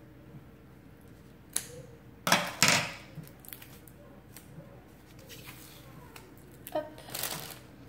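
Scissors cutting the tape and plastic wrap around a rolled canvas: a short snip, then two louder cuts about two and a half seconds in. Another rustling burst comes near the end.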